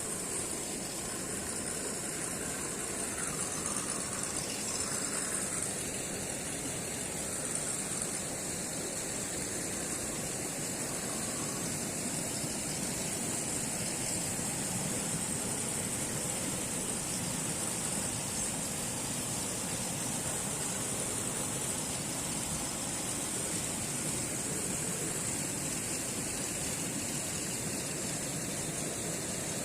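Electric motor and gear drivetrain of a 1:10 RGT EX86010CJ RC rock crawler running steadily, with a constant high hiss.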